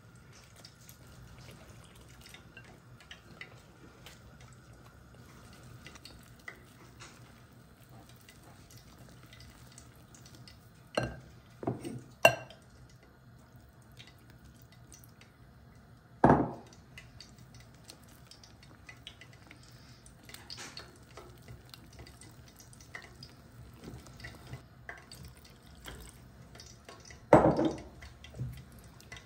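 Fritter batter of flour and water being mixed in a bowl: soft scrapes and small clicks of a utensil, with a few sharp knocks and clinks on the bowl, the loudest near the middle and near the end.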